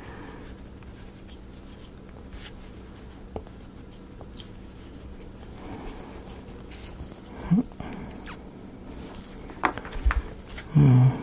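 Small laser-cut wooden model pieces being handled and pressed into place: scattered soft clicks and taps. A brief low vocal sound comes about two-thirds through and again just before the end.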